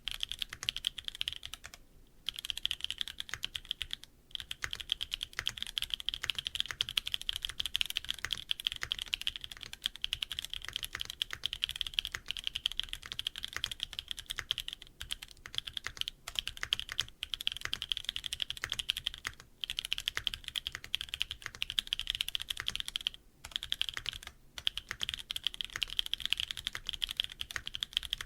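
Neo80 gasket-mount mechanical keyboard with a carbon fiber plate, no foam and HG Black switches, typed on quickly and steadily, with a few brief pauses.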